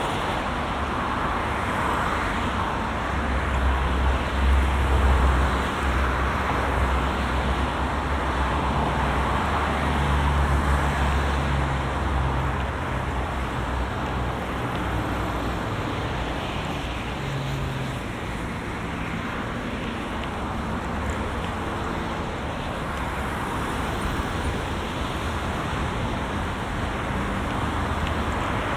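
Steady road traffic on a multi-lane avenue: cars passing with tyre and engine noise. A deep low rumble is strong in the first half and eases off about halfway through.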